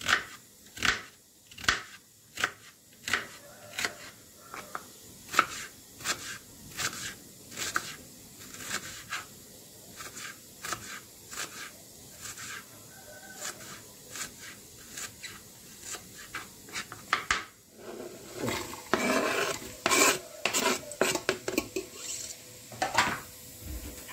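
Knife chopping onion on a plastic cutting board, the blade knocking sharply on the board about one to two times a second. Near the end comes a louder, denser stretch of scraping and clattering as the chopped onion is moved into a stainless steel pot.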